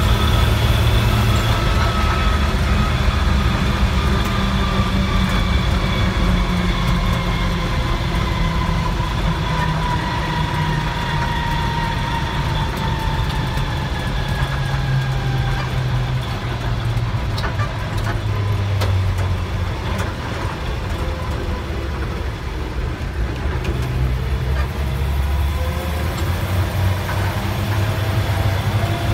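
1967 Kaiser Jeep M715's Tornado overhead-cam straight-six running as the truck drives along, heard from inside the cab. A whine slowly falls in pitch over the first half and rises again near the end.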